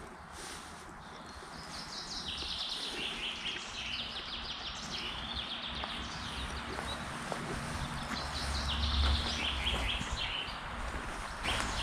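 Forest songbirds singing in fast trilled phrases, several in a row, over a steady outdoor hiss. A low rumble swells about nine seconds in.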